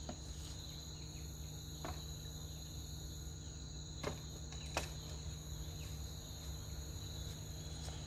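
Steady, high-pitched chirring of an insect chorus, with a few sharp clicks about 2, 4 and 5 seconds in.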